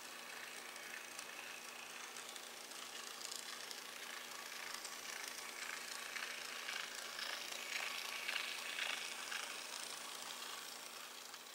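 A model train running: the small stepper motor of a converted KATO Chibiloko locomotive turning with a faint steady whine, and small clicks and rattles from the wheels on the track as it pulls two passenger cars. It grows louder about two-thirds of the way through as the train passes close, then fades.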